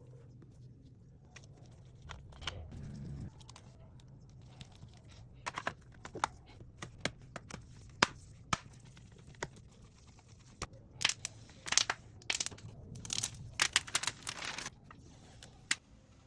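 Hands working on a laptop repair: a run of sharp clicks and short crinkling, tearing sounds, as of plastic film or adhesive being peeled and parts being handled, thickest in the second half.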